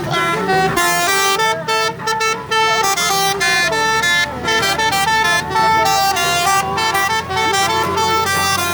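Multi-tone telolet horn playing a tune of held notes that step quickly from pitch to pitch, with a few brief breaks between phrases.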